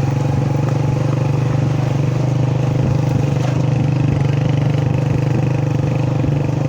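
Motor vehicle engine running at a steady speed, a constant low hum with no change in pitch.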